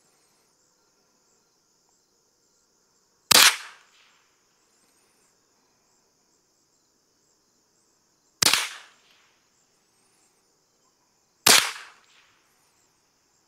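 Remington 597 semi-automatic .22 LR rifle firing CCI Mini Mag hollow points: three single shots, the first about three seconds in, the next about five seconds later and the last about three seconds after that. Each is a sharp crack with a brief ring-off.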